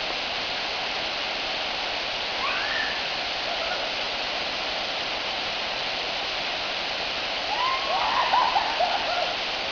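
Steady rush of a waterfall, with faint voices calling out briefly about two seconds in and again near the end.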